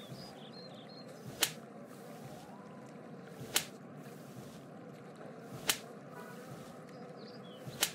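Four sharp slap sound effects about two seconds apart, over faint steady background ambience.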